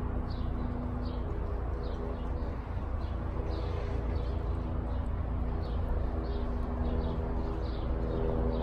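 Low, steady rumble of a jet airliner flying high overhead, with a small bird chirping in short high notes on and off, about twice a second.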